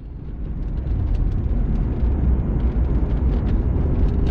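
Car cabin noise while driving: a steady low rumble of engine and road, fading in over the first second.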